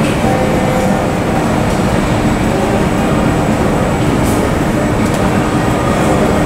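Steady airport ramp noise: a constant rumble and hiss with a few faint steady whining tones, from running aircraft and ground equipment.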